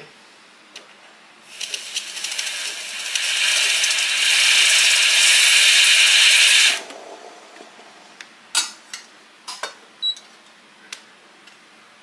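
SMEG EGF03 steam wand being purged: a loud hiss of steam that builds for a couple of seconds, holds, and cuts off sharply after about five seconds. A few light clicks and knocks follow.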